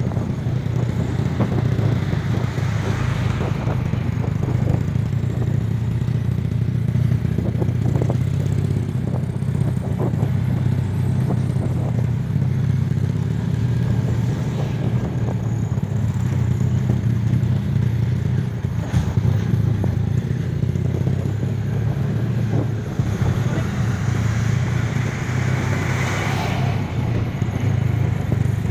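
Small motorcycle engine running steadily at cruising speed, a constant low drone, with road noise and a few knocks from the rough dirt road.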